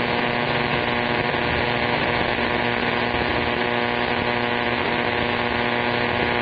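CB radio receiver putting out steady static with a buzzing hum of fixed tones and no voice, heard during long-distance skip reception.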